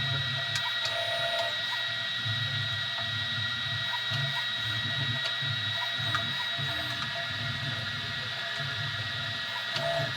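Easythreed X2 3D printer printing: its stepper motors buzz in short, uneven runs as the print head moves, over a steady high-pitched whine.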